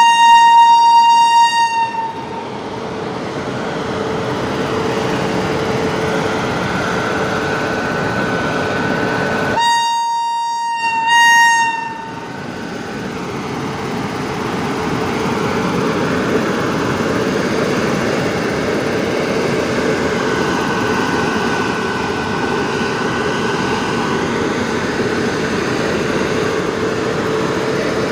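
WAP-7 electric locomotive's high-tone horn sounding a blast of about two seconds, then again about ten seconds in. Between and after the blasts the departing express train runs with a steady rumble.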